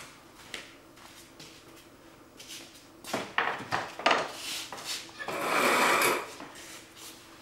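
Soft footsteps in sandals across a concrete floor, then wooden knocks and a loud scrape of just under a second as a large canvas is handled on a wooden easel.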